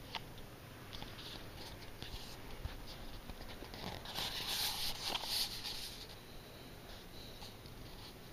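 Boston terrier snoring and snuffling in her sleep, with a louder stretch about four to six seconds in and faint small clicks throughout.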